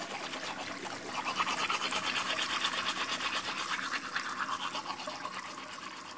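Teeth being brushed with manual toothbrushes: a continuous, rapid scrubbing of bristles on teeth, louder from about a second in and easing off near the end.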